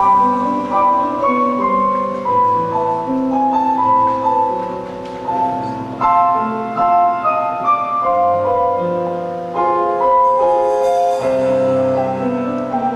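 Piano playing an instrumental show-tune passage, a steady run of notes and chords.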